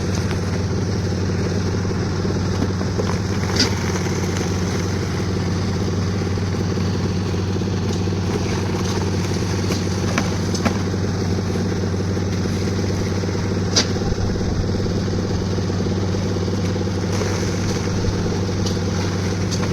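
Concrete mixer's engine running steadily, with a few sharp knocks now and then.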